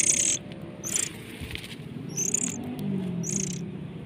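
Short, harsh high-pitched bird chirps repeating about once a second, the first the loudest.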